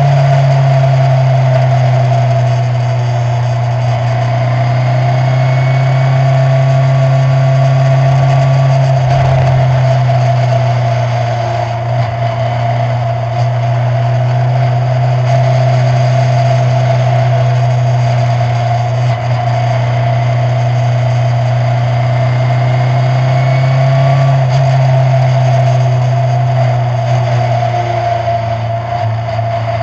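Skip Barber open-wheel formula race car's engine running at steady revs, heard from the onboard camera, its note holding at one pitch with only slight dips.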